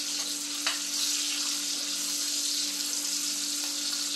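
Dried fish (tuyo) sizzling steadily as it fries in hot oil in a pan, with a light click about a second in and a steady low hum underneath.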